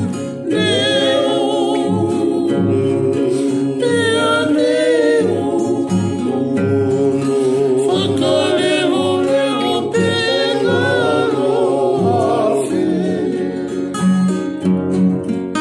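A man singing a Tongan faikava song, accompanying himself on a strummed acoustic guitar. His voice stops about twelve seconds in, and the guitar strums on alone.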